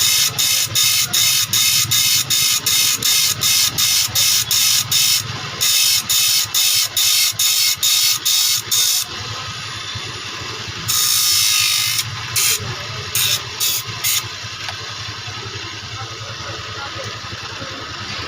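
Hand file rasping across handsaw teeth in quick, even strokes, about three a second, cutting the teeth down smaller. The strokes stop about nine seconds in, followed by one longer rasp and a few short ones, over a steady low hum.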